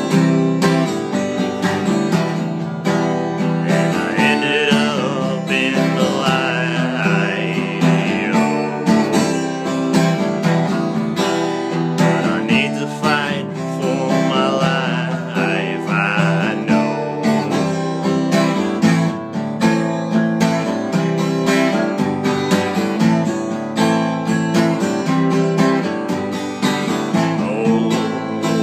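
Music: a song led by strummed acoustic guitar, with a wavering high melody line that comes in about four seconds in and again about twelve seconds in.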